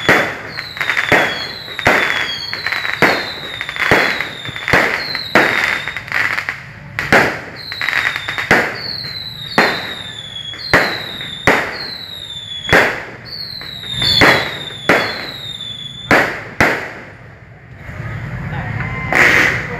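Fireworks going off in a rapid series of about one shot a second, each a sharp bang with a short whistle falling in pitch. The shots stop about seventeen seconds in, and a steadier noise rises near the end.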